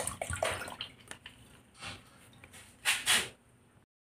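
Last of the diesel dripping and trickling from a bottle into a plastic bucket of crushed mothballs, a quick run of small drips that thins out to scattered ones. Near the end come two short, louder noises of handling.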